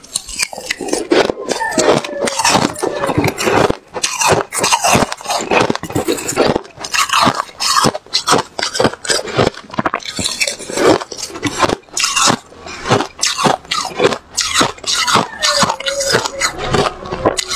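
Close-miked chewing of fluffy white freezer frost, a dense run of irregular crisp crunches all through. Partway through, a metal spoon scoops more frost from a silicone mould.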